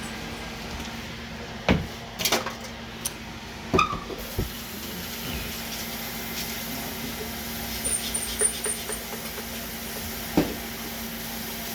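Kitchen handling noises: several sharp knocks and clunks in the first few seconds, then a run of lighter clicks and taps and one more knock near the end, over a steady low hum.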